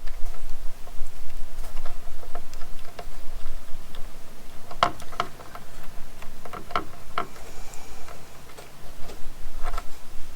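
Scattered light clicks and ticks of hands working small tools and wiring, with a few sharper clicks in the middle and one more near the end, over a steady low rumble.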